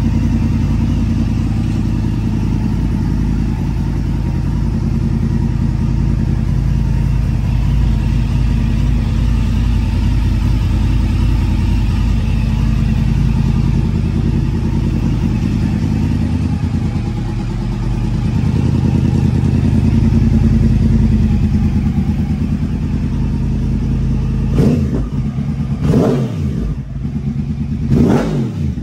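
2011 Yamaha R1's crossplane inline-four engine idling steadily while it warms up, then revved in three quick throttle blips in the last few seconds.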